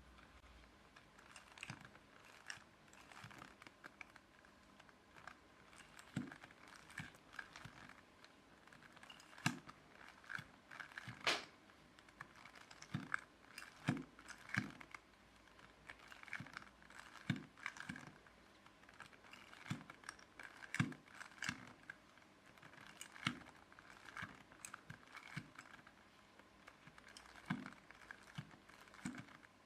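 Plastic Rubik's Cube being turned by hand over and over: faint clicks and rattles as its layers snap round, in uneven clusters a second or so apart.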